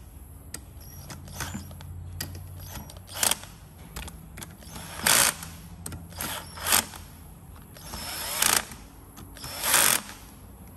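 Cordless drill driving camshaft bearing-cap bolts in about nine short bursts, its clutch ratcheting briefly as each bolt snugs down. The bolts are run down lightly and staggered so the camshaft pulls down evenly onto its journals.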